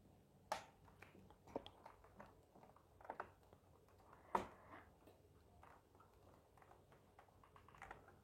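A few light, sharp clicks and taps of a laptop's plastic casing and parts being handled and fitted back together, the clearest about half a second in and about four seconds in, with near silence between.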